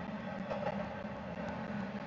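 Double-stack intermodal freight cars rolling past, a steady rumble of steel wheels on rail with a few faint clicks.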